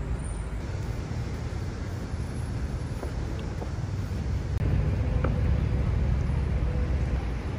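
City street ambience: a steady low rumble of traffic, with wind on the microphone. It cuts abruptly to a louder rumble about four and a half seconds in.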